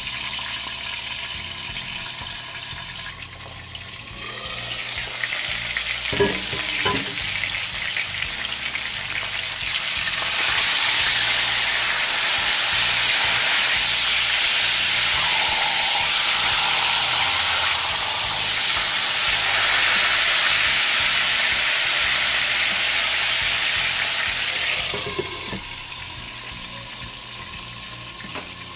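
Dried split milkfish (daing na bangus) frying in hot oil in a pan: a steady, spattering sizzle. It gets louder a few seconds in and is loudest through the middle, while the lid is off and the fish is turned with a spatula, then turns quieter and muffled under the lid near the end.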